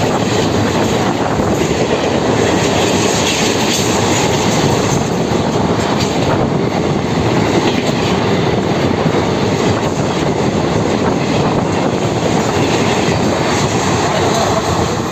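Express passenger train running through a station without stopping: a steady rush of coaches passing at speed, with the wheels clattering over the rail joints.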